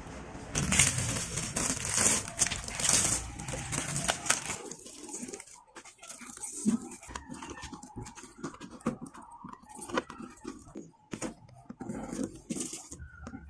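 Old polarizer film being peeled and torn off the glass of an LCD TV panel by hand, crackling as it comes away. Several loud tearing strokes in the first few seconds, then quieter, irregular crinkling and clicking as the remaining shreds are picked off.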